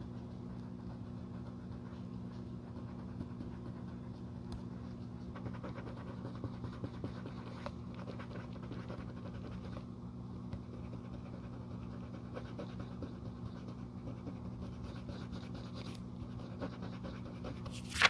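Cotton swab scratching and rubbing over the black leather of a Prada loafer during cleaning, a fine continuous scratchy sound with small ticks over a steady low hum. A short, loud swish near the end.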